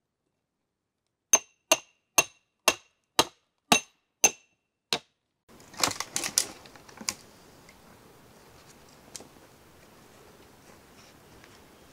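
About eight sharp, ringing metal-on-metal blows, roughly two a second, from a hammer driving steel wedges into a cedar log to split it. About a second later comes a run of cracking and splintering as the split cedar is pried apart.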